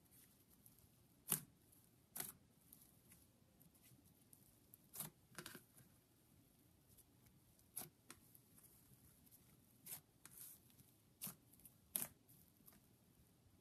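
Thick, creamy slime being pressed and poked by hand, giving sharp little pops and clicks as trapped air bursts, irregularly every second or so.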